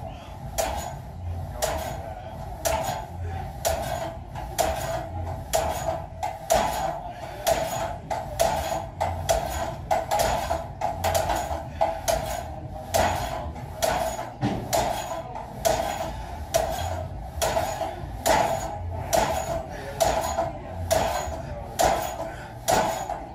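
A loaded Smith machine clanking over and over as its bar is pressed overhead in quick, short repetitions. The metallic knocks come at a fast, even pace, about three every two seconds.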